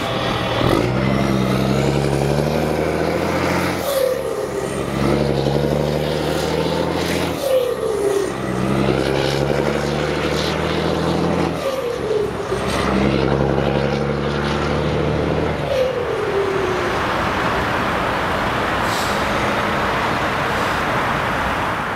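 DAF XF105.410 truck's straight-six diesel with an open, loud exhaust pipe, accelerating away through the gears. There are four pulls, each ending in a drop in pitch as it shifts up, about every three and a half seconds. After the last shift the engine gives way to a steady road and tyre hiss.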